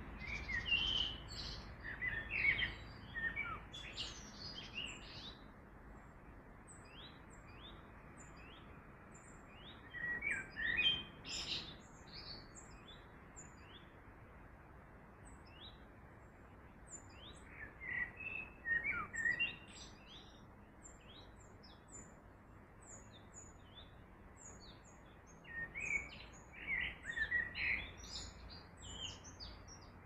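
Songbirds singing in short bursts of phrases every several seconds, with thin high chirps in between, over the steady hiss of running river water.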